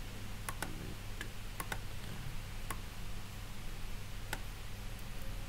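Computer mouse and keyboard clicks as text is selected and copied on a computer: about eight sharp, irregularly spaced clicks over a steady low electrical hum.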